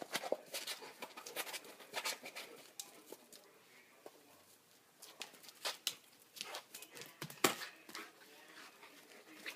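A dog playing catch on a concrete patio: scattered, irregular clicks and taps of claws and a ball on the concrete, with one louder knock about seven and a half seconds in.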